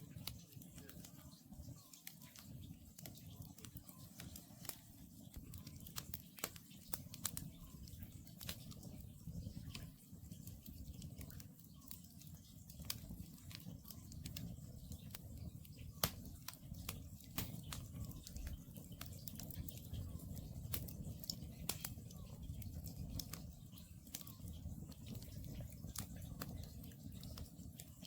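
Wood campfire burning with irregular crackles and pops over a low steady rumble of the flames, one sharper pop about sixteen seconds in.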